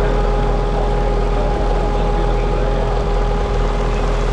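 The freshly rebuilt engine of a 1926 Seagrave fire engine idling steadily, with a steady high whine over the running.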